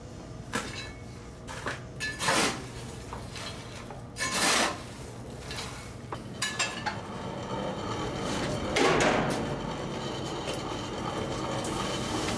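Metal coal shovel scraping and clinking in a coal forge's firepot: three short scrapes with small clinks between them. A steady rushing noise builds in the second half.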